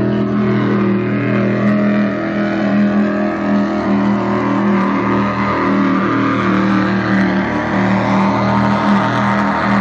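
Motors running at a constant speed, a loud, steady droning hum with several fixed pitches and no change in speed.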